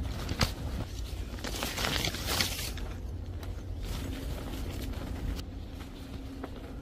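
Footsteps on a dirt forest trail, with a louder stretch of rustling through leaves and brush about two seconds in, over a steady low rumble.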